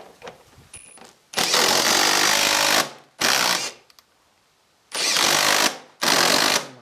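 Cordless drill driving Torx concrete frame screws through a PVC window frame into the subframe, in four runs: one long run of about a second and a half, then three shorter ones. The screws are driven in, backed out and driven home again, so that the thread cut in the profile on the first pass does not hold the frame upright off.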